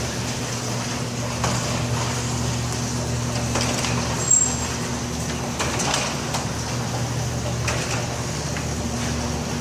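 LiftMaster chain-drive commercial garage door opener running as it raises a door: a steady motor hum with scattered clicks and rattles from the chain and door.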